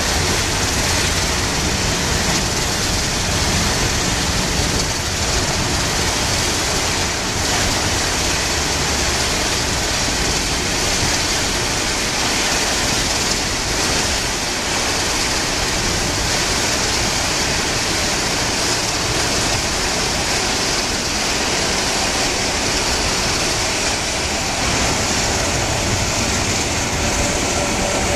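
Boeing 737-900ER's twin CFM56-7B turbofans at takeoff power during the takeoff roll: a steady roar. Whining tones come through near the end as the jet draws closer.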